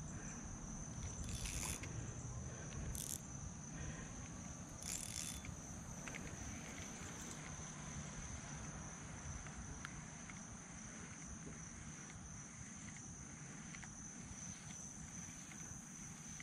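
Steady, high-pitched insect chorus, with a few brief higher-pitched swells in the first few seconds, over a low outdoor rumble.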